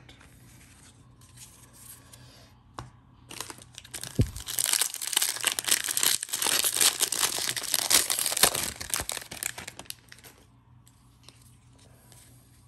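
Wrapper of a 2021 Bowman jumbo baseball card pack being torn open and peeled back, crinkling and tearing for about six seconds starting around three seconds in, then fading to faint rustling as the stack of cards is handled.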